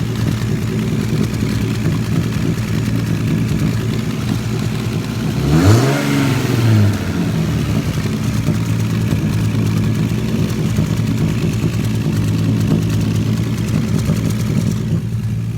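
Turbocharged Lexus IS300 inline-six engine running steadily under way, with a quick rev up and back down about six seconds in. Its downpipe has just been resealed, and the exhaust leak is gone.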